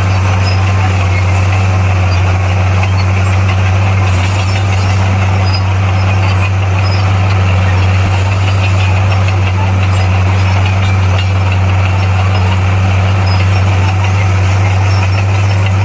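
Bulldozer's diesel engine running loudly at a steady speed, a deep even drone with no change in pitch.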